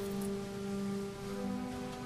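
Slow church organ music: sustained held chords that change pitch once or twice.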